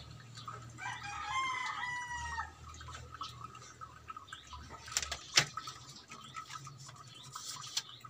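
A rooster crows once in the background, starting about a second in and lasting about a second and a half. About five seconds in come a couple of sharp clicks, the second of them the loudest sound here.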